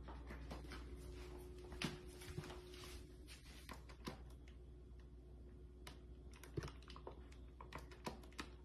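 Faint, irregular clicks and light rustles from a dog moving about on a tile floor with a paper bag over its head: claws tapping the tile and the paper bag crinkling. A low steady hum runs underneath.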